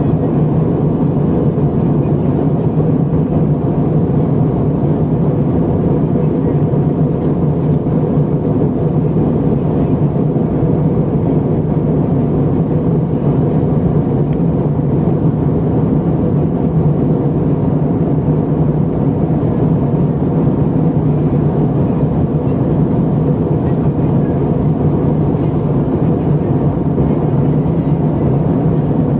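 Airbus A320 cabin noise in flight: a steady, even rush of jet engine and airflow noise, strongest in the low range and unchanging throughout.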